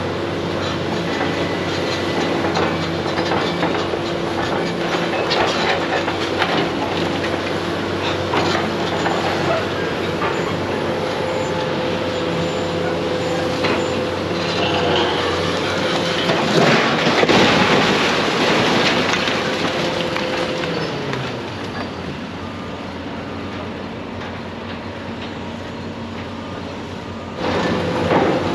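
Heavy diesel demolition machinery running, its engine pitch shifting as it works, with metal clanking and a louder stretch of grinding and scraping debris about halfway through.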